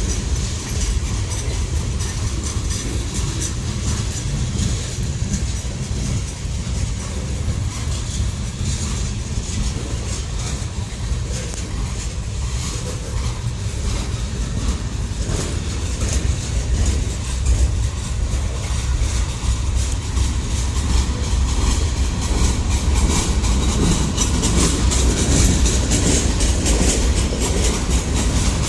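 Freight train cars rolling past: a steady low rumble with the wheels clicking over the rail joints. It grows a little louder near the end.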